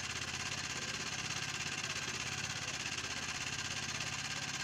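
Small engine running steadily at idle, with an even low pulsing hum and a constant hiss above it.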